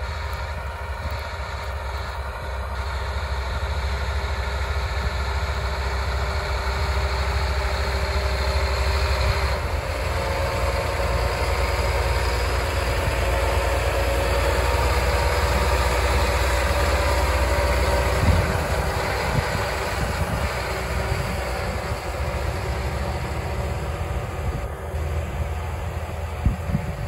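John Deere 8RX quad-track tractor working, pulling a Pottinger Terradisc disc harrow through stubble: a steady engine and track rumble that grows louder as the machine comes close, is loudest a little past the middle, then eases off as it moves away.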